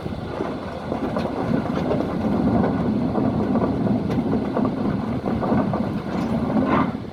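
Doosan crawler excavator's diesel engine running under load as the machine moves, with a few sharp metallic clanks from its steel tracks. One track's final drive is out of action.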